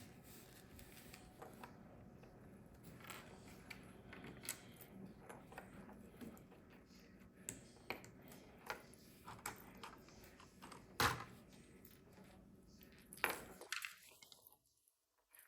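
Small plastic Lego pieces clicking and rattling as they are handled and sorted, scattered light clicks with a sharper knock about eleven seconds in and another a couple of seconds later.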